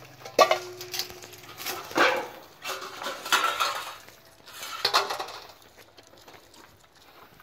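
Metal dog-feeding bowls and pans clattering as they are handled and set down on gravel: a sharp clank about half a second in that rings briefly, then several more rattling clatters over the next few seconds.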